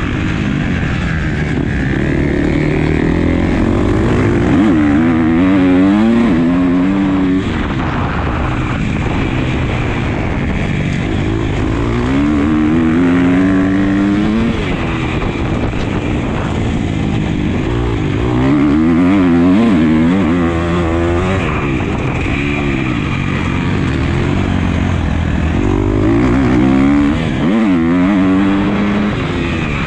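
Motocross dirt bike engine heard from on board, revving hard in repeated surges: the pitch climbs as it pulls through the gears on the straights, then drops back off the throttle into the corners, about four times.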